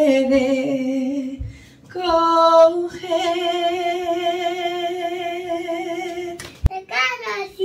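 A woman singing without words, holding a few long notes with vibrato, the last held for several seconds. A sharp knock about six and a half seconds in, then a brief higher voice near the end.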